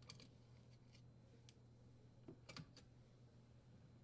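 Near silence, broken by a few faint clicks and ticks of a screwdriver turning out a screw and a small metal cover plate being handled, with a small cluster of clicks about two and a half seconds in.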